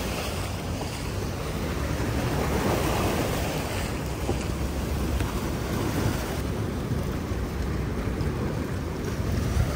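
Choppy river waves washing and splashing against riprap rocks, with wind buffeting the microphone as a steady low rumble.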